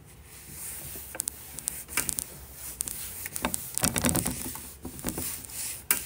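Irregular light clicks, taps and rustling of objects being handled on a tabletop.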